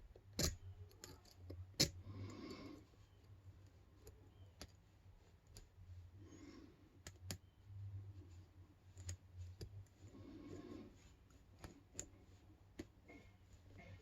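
Brass padlock being picked: the pick and tension wrench working in the keyway make scattered small sharp clicks at irregular intervals, the two loudest within the first two seconds.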